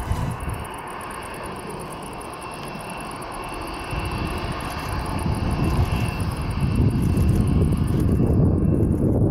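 Airbus A330-900neo's Rolls-Royce Trent 7000 turbofans running as the airliner rolls down the runway, with a thin high whine over a steady rumble. The noise swells from about four seconds in as the jet comes closer.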